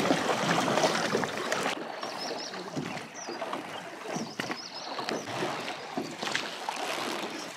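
Oars splashing and dripping in the water as a small rowboat is rowed along, louder in the first couple of seconds, with a few sharper strokes later on.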